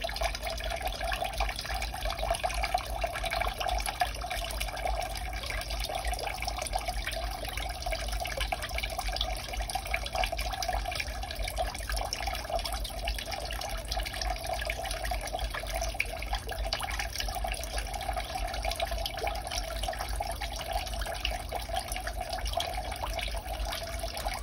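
Two-tier barrel pump waterfall fountain running: water pours from the hand-pump-style spout into the upper barrel and spills over into the lower basin, a steady splashing trickle.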